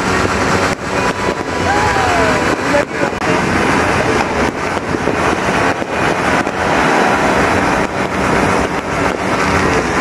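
Fireworks and firecrackers going off all around in a dense, continuous barrage of bangs and crackling, with a brief whistle about two seconds in.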